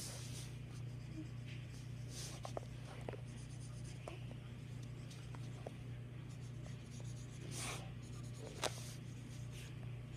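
Felt-tip marker colouring on paper: irregular scratchy strokes and a few light taps, over a steady low hum.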